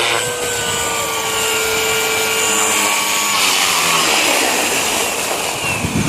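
JR Forza 450 radio-controlled helicopter flying, its whine shifting slowly in pitch as it manoeuvres, over wind noise.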